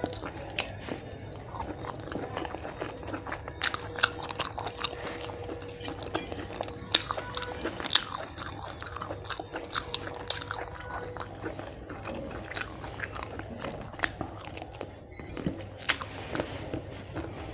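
Close-up mukbang eating sounds: a person chewing mouthfuls of rice and fish eaten by hand, with lip-smacking and many sharp, irregular wet mouth clicks.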